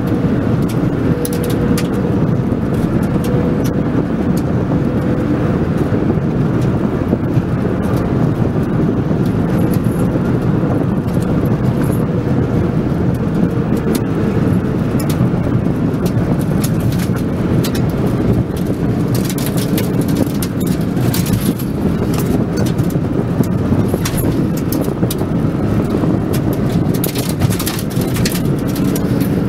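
Car engine and road noise heard from inside the cabin while driving at speed, the engine note shifting in pitch as the driver changes speed. Frequent sharp clicks and rattles run through it, thickest in the second half.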